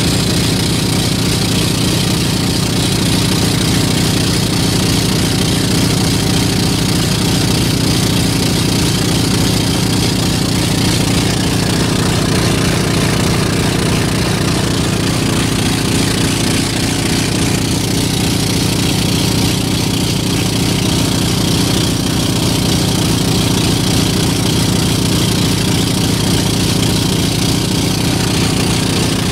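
Engine of a bamboo-outrigger boat running steadily at full throttle with a fast low throb, the boat at its top speed of about 24 km/h.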